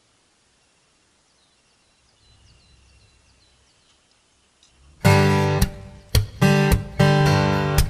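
Faint outdoor ambience with a few faint high chirps. About five seconds in, background music starts abruptly: a strummed acoustic guitar, loud, with sharp strokes roughly two a second.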